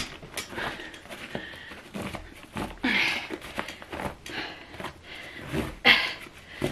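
Nylon compression straps on an Eastpak TRANS4 soft suitcase being pulled tight through their plastic buckles: several short pulls of webbing, with rustling of the fabric case. The strongest pulls come about three seconds and six seconds in.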